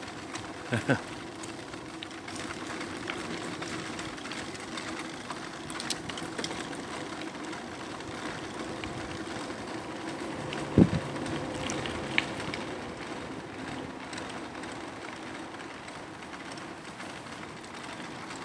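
Aostirmotor S17 e-bike riding along: a steady drone from its motor and tyres with wind noise, and a single thump about eleven seconds in.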